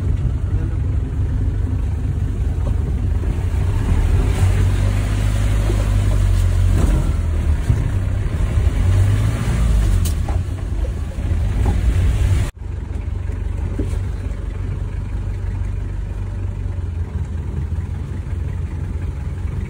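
Hindustan Ambassador car running while being driven, a steady low engine and road rumble that is louder in the first part, with a sudden break about two-thirds of the way through, after which it runs on more evenly.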